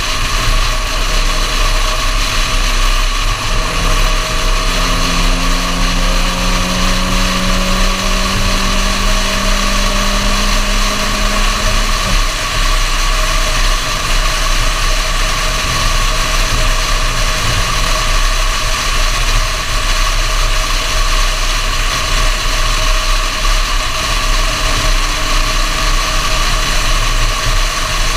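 Suzuki Swift's 1.3-litre G13B naturally aspirated four-cylinder engine pulling while driving, heard from outside the car under a steady rush of wind and road noise. The engine's pitch climbs gradually, then drops about twelve seconds in, and the engine fades back into the road noise a few seconds later.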